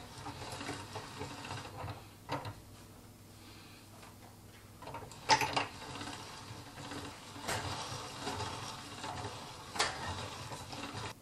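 Pasta machine's linguine cutter rollers turning as sheets of dough are fed through, a rattling mechanical whirr in several stretches, with sharp knocks in between, the loudest about five seconds in.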